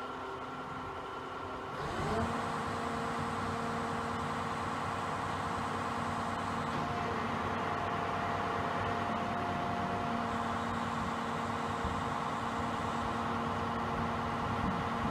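Steady electric machine hum with several held tones that starts abruptly about two seconds in and runs on unchanged, like a stopped electric train's onboard equipment running.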